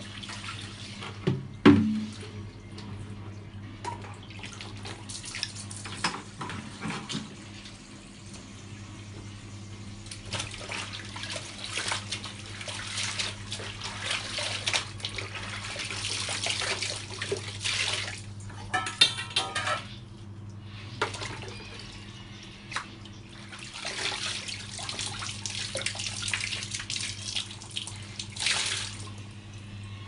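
Water splashing and sloshing as clothes are washed by hand in a plastic basin, in uneven swells, with a few knocks near the start and a steady low hum underneath.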